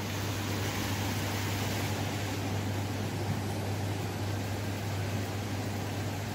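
Steady low hum and even hiss of ventilation in a large indoor mall atrium, with no distinct events.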